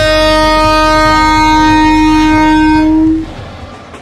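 Electric multiple-unit train's air horn sounding one long steady blast over the low rumble of the train running, cutting off about three seconds in.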